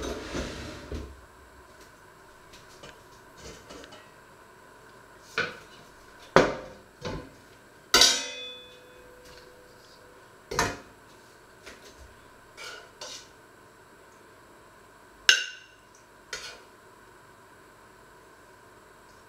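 A stainless steel stockpot and its metal lid being handled on a wooden cutting board: a string of separate clanks and knocks, two of them ringing briefly.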